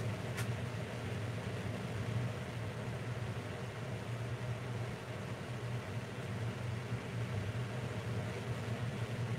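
A steady low motor hum that does not change, with one faint click just after the start.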